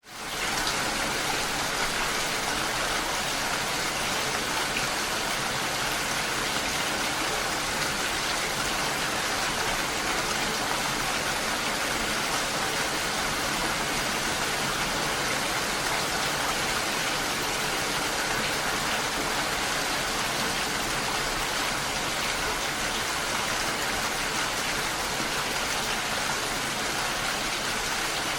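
Steady rain, a dense even hiss with no breaks, fading in quickly at the start.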